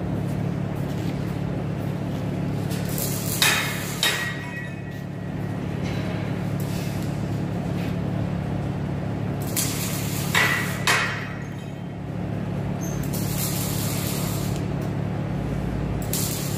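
Steady low electrical hum of workshop welding equipment standing by, with a few sharp clinks and knocks of metal gear being handled: a pair about a quarter of the way in and another pair about two-thirds through.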